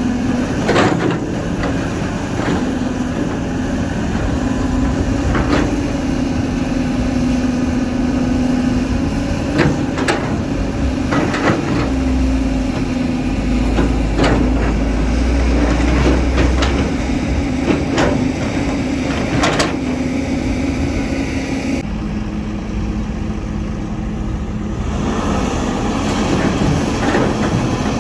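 Caterpillar 320 hydraulic excavator's diesel engine running steadily under load while loading a dump truck, with scattered sharp knocks and clanks from the digging and dumping, and a deeper rumble for a few seconds midway.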